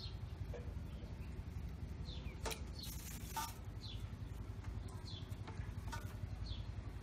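Small knife peeling a cucumber: short scraping strokes every second or two, with one longer rasp about three seconds in, over a steady low rumble.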